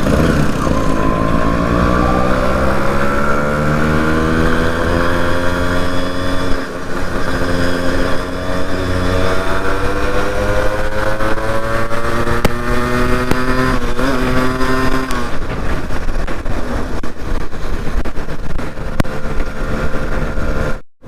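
Yamaha RX two-stroke single-cylinder motorcycle engine under way, heard from the rider's seat. Its note climbs steadily under acceleration, dips briefly at a gear change about a third of the way in, and climbs again. It then holds steadier under more rushing noise, and cuts off abruptly just before the end.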